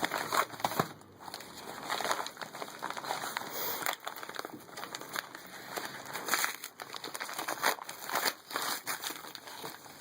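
Packaging crinkling and crackling in irregular bursts as a shipped package is opened by hand.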